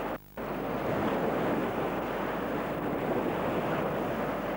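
Steady rushing of wind on the camcorder microphone mixed with small waves washing onto a pebbly shore. The sound cuts out for a moment just after the start.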